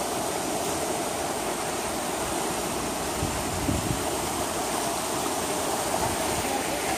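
Ocean surf washing onto a sandy beach: a steady, even rush of water.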